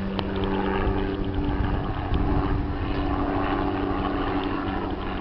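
A boat motor running at a steady low speed, a constant drone, with wind buffeting the microphone.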